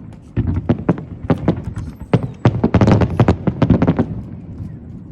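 Aerial fireworks bursting: a rapid string of sharp bangs, several a second, thickest around the middle.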